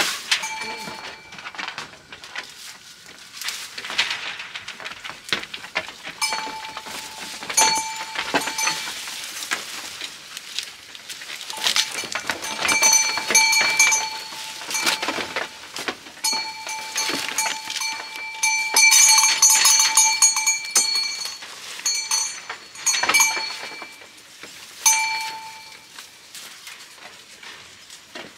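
Goats feeding on fern fronds: leaves rustling and being torn and chewed, with frequent short knocks. A steady high-pitched whine cuts in and out several times and is loudest a little past the middle.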